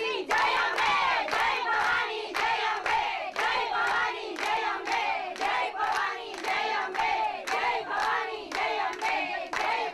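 A group of women singing a song together, clapping in time at about two claps a second.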